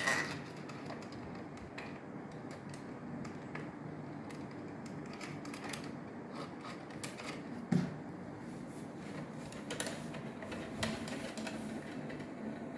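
Small metal clicks and taps of door lock parts being handled and fitted, with a sharper knock about eight seconds in, over a steady low hum.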